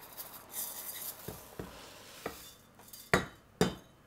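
Dry rice poured from a stainless steel jug into a saucepan of boiling water: a brief hiss of grains sliding out, a few light clicks, then two sharp knocks of metal on metal near the end, half a second apart.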